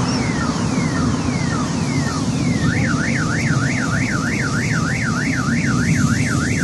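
Car alarm siren sounding: a run of falling sweeps about two a second, switching about halfway through to a fast up-and-down warble, over a steady low rumble.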